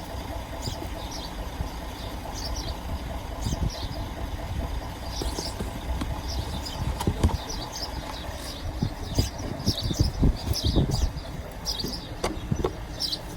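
Backhoe engine idling steadily, with a few low knocks, while birds chirp repeatedly over it.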